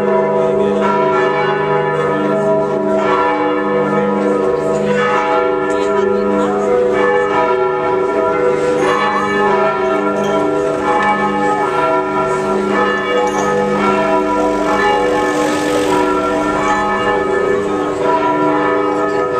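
Several church bells pealing together, their overlapping tones ringing on without a break.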